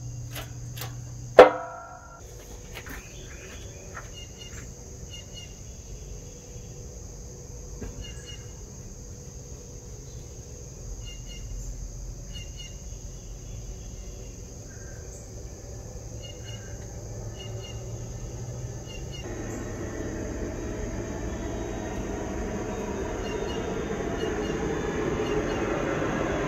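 A single sharp metallic clank with a short ring from the hydraulic shop press and axle setup about a second and a half in, then a quiet background of faint scattered chirps and a steady high hiss. A rumbling noise swells in over the last seven seconds or so and keeps growing.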